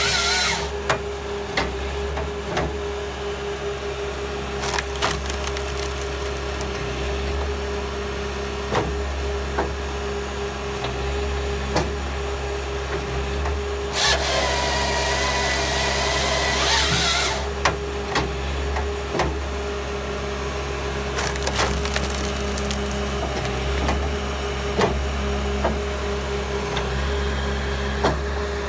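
Halverson firewood processor on a Bobcat track loader working dry red gum: the machine hums steadily throughout while sharp cracks and knocks of splitting, falling wood come again and again. About halfway through, the saw cuts through the log for about three seconds.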